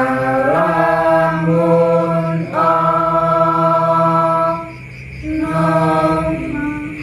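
A small group of voices singing the Javanese tembang macapat Pangkur in unison, unaccompanied, on long held notes that step between pitches. The singing comes in three phrases, with a short break about two and a half seconds in and a longer pause about five seconds in.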